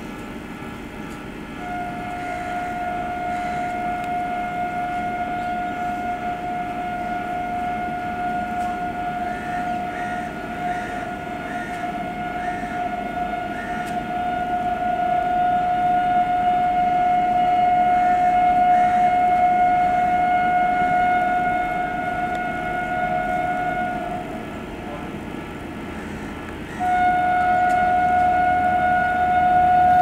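Ranchi Shatabdi Express locomotive's air horn sounding in long, continuous blasts as the train approaches unseen, over a growing rumble of the train. The horn holds one steady note for about twenty seconds, getting louder, stops for a moment, then comes back louder still near the end.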